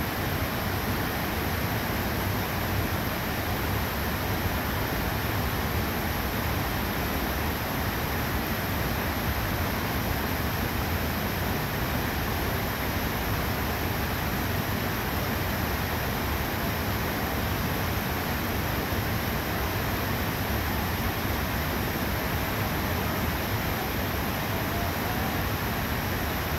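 Rocky creek rushing over rapids below a waterfall: a steady, unbroken wash of white water.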